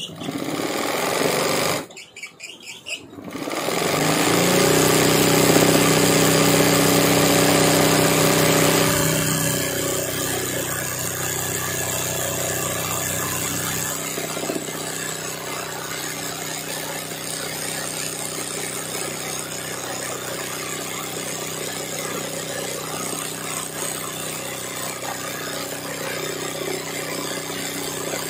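Sewing machine stitching machine embroidery into hooped fabric. It stops briefly about two seconds in, restarts and runs louder with a steady motor hum for a few seconds, then settles into steady running.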